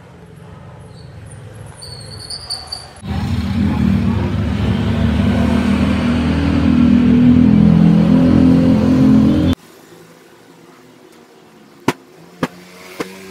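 A loud motor engine running for about six seconds, growing louder, then cut off abruptly. A few faint high chirps come before it, and three sharp knocks follow in a quiet room near the end.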